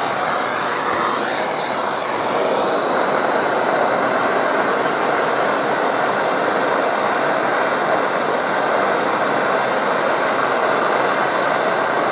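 Handheld gas blowtorch burning with a steady, even hiss, a little louder from about two seconds in.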